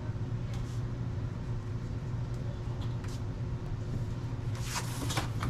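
Steady low background hum, with a few light scratching or rustling sounds about five seconds in.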